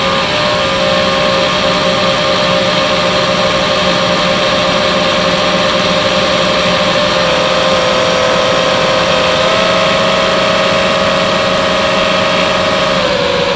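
FPV drone's electric motors and propellers whining steadily in flight. The pitch steps up slightly about seven and again about nine and a half seconds in, then drops near the end as the throttle eases.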